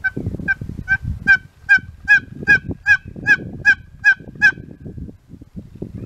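A wild turkey yelping: a series of about twelve evenly spaced yelps, roughly two and a half a second, ending about four and a half seconds in.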